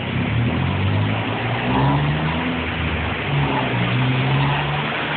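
A motor vehicle's engine running and revving, its pitch rising and falling, over a steady noisy hiss.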